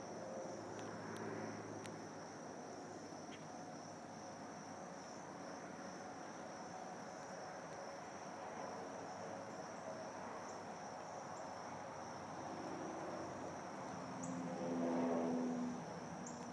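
Steady high-pitched chorus of crickets over a low rolling rumble of wheels on asphalt. A louder humming swell rises and fades about fourteen seconds in.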